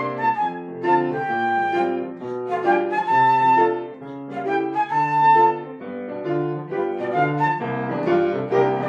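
Classical music: a solo woodwind melody of held notes over piano accompaniment.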